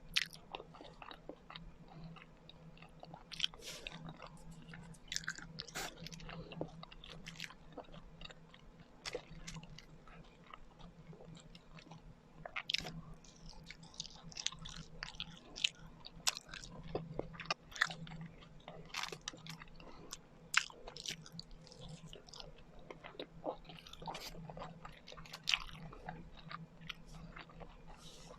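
Close-miked chewing and biting of kakanin, Filipino rice cakes, with irregular mouth clicks and smacks and a faint steady hum beneath.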